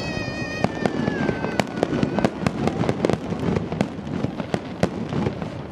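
Star mine fireworks barrage: many sharp bangs of bursting shells in quick succession. Over the first two seconds a whistling tone slowly falls in pitch.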